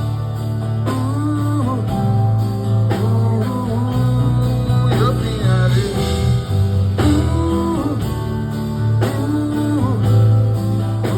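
Live band music with a steady bass line, guitar, and a bending melodic lead line over it.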